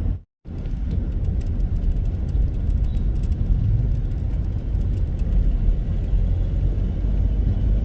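Mahindra Marazzo MPV on the move, heard from inside the cabin: a steady low rumble of engine and road noise. The sound cuts out for a moment about a third of a second in, then carries on unchanged.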